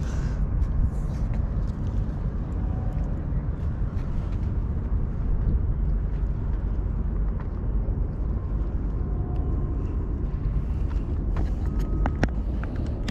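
Steady low outdoor rumble, with a few faint clicks near the end.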